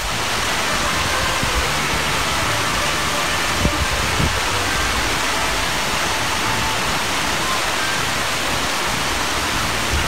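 Steady rush of water spilling over a low weir, an even constant noise, with two faint knocks about four seconds in.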